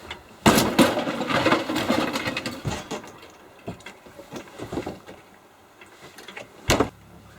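Rapid mechanical rattling and clicking for a couple of seconds, then scattered small clicks and one sharp knock near the end, from interior fittings being unscrewed and taken apart.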